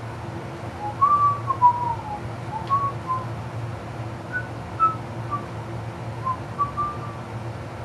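A person whistling a slow, wandering tune in short notes that slide up and down, with the notes growing sparser toward the end. A steady low hum runs underneath.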